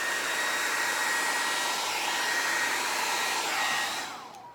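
Hair dryer running at full speed, a steady rush of air with a high motor whine, then switched off near the end, its whine falling as the motor spins down.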